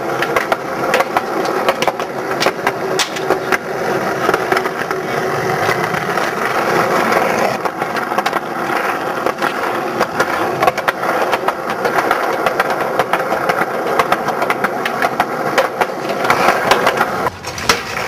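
Skateboard wheels rolling on rough concrete, a steady rolling noise broken by frequent irregular clicks and knocks.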